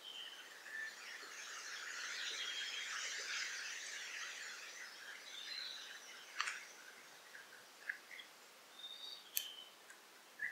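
Forest birds calling: a dense chatter of many overlapping high notes for the first six seconds or so, then sparser short calls. A short high two-note call comes several times. Two sharp clicks stand out, one about six and a half seconds in and one about nine and a half seconds in.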